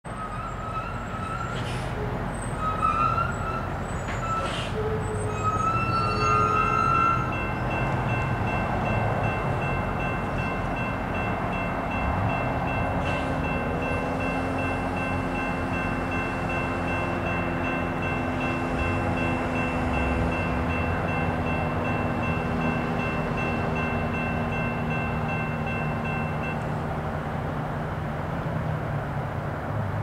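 Approaching diesel freight train led by a GE AC44CW: a steady low engine rumble, with a long chord from the locomotive's Nathan K3HA three-chime air horn held from about six seconds in until shortly before the end.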